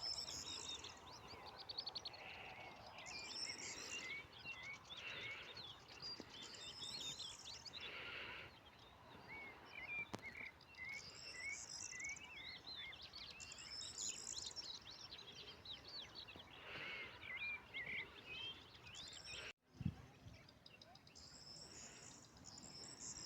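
Several songbirds singing and chirping together, short warbled phrases and quick chirps overlapping. Late on, the sound drops out for an instant and is followed by a short dull thump.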